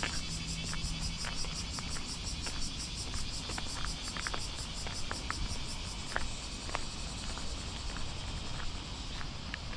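Summer cicadas buzzing in a steady chorus with a fast, even pulse, over a low rumble, with light, scattered ticks that fit footsteps on pavement.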